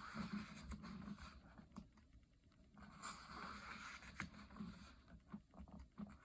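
Faint rustle of coloring-book pages being handled and turned, with a few light taps and clicks.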